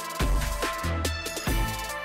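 Electronic music with deep bass-drum kicks about every two-thirds of a second under a sustained synth tone.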